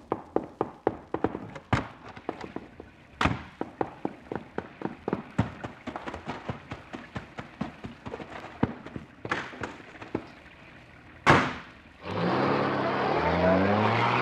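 Radio-drama sound effects: a long run of short knocks and thumps, about three or four a second, with a single loud bang about eleven seconds in. Right after it, a brass music bridge starts up.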